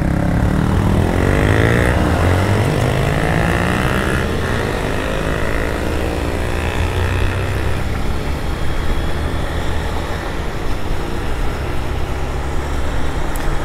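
A four-cylinder motorcycle engine revving up, its note rising in pitch over the first four seconds. Underneath runs the steady engine of a single-cylinder Honda Fan 160 and wind noise from riding.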